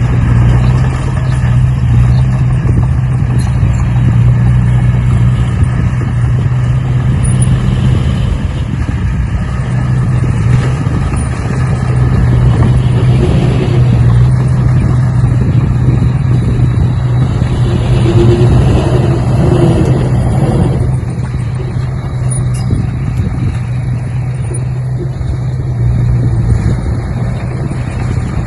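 A motor running steadily with a low drone, a little quieter in the last few seconds.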